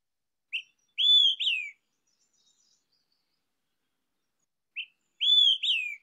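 Olive-sided flycatcher song, its loud whistled 'quick-three-beers' phrase given twice: a short first note, then a long arched note and a steeply falling last note.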